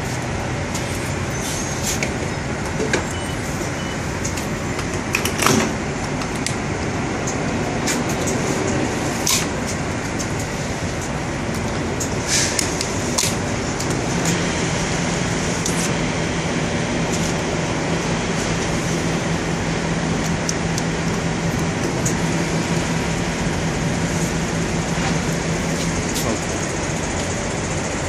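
Steady mechanical hum of a truck-stop diesel fuel island, with scattered light clicks and knocks. About halfway through, a steady low hum sets in and holds, as the diesel dispenser starts pumping fuel into the semi's tanks.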